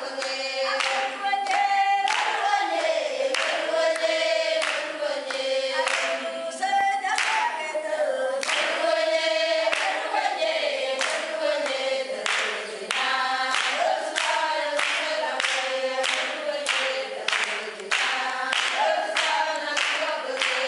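A group of voices singing together without instruments, with steady hand clapping keeping the beat.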